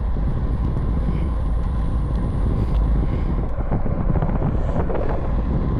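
Steady wind rushing over the microphone of a camera mounted on a bicycle riding at about 14 mph.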